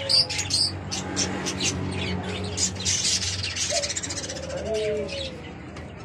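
A crowd of caged small parrots, lovebirds and budgerigars, chirping over each other in many short high notes, with a few low cooing notes from doves, one near the end.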